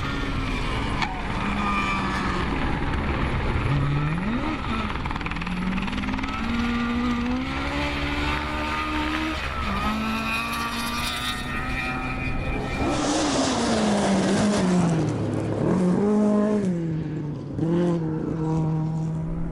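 Ford Escort RS 1800 rally car's four-cylinder engine revving hard under load, its pitch climbing and falling again and again as it accelerates, changes gear and lifts off on the hillclimb.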